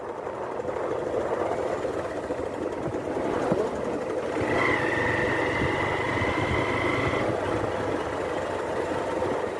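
Motorcycle engine running under way, mixed with wind and road noise, as picked up by the rider's headphone microphone under his helmet. A steady high-pitched tone joins for about three seconds in the middle.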